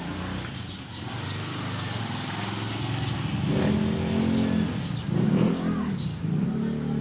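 A motor vehicle's engine passing close by, growing louder through the stretch and rising and falling in pitch as it revs.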